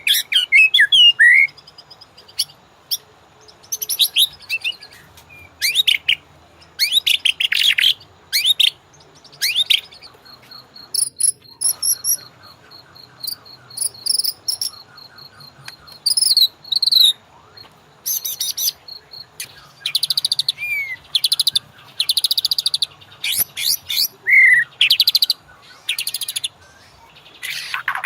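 White-rumped shama (murai batu) singing in short, loud, varied phrases with brief pauses between them. A thin steady high tone runs beneath the song in the middle.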